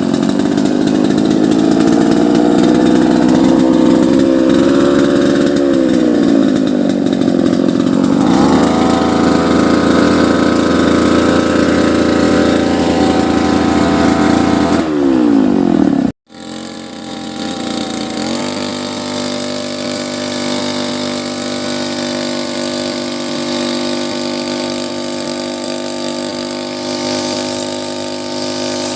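Small petrol engine of a grass-cutting machine running, its pitch sliding up and down as it is revved. The sound breaks off for a moment about sixteen seconds in, then the engine runs on at a steadier pitch.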